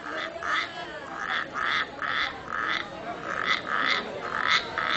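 Homemade friction-drum frog call (a bolillo: a cane tube with a rabbit-skin membrane and a resined string) being sounded by working the string. It gives a run of short rasping croaks, about two a second, made to imitate frogs and lure them to the hunter's light.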